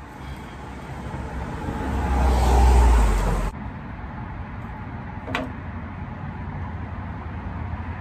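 A motor vehicle passing close by, its rumbling noise swelling for about three seconds and then cutting off abruptly. A single sharp click sounds a couple of seconds later.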